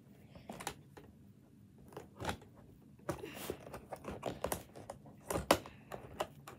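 Hands working a toy out of its packaging: scattered clicks, taps and crinkling, sparse at first and busier from about three seconds in.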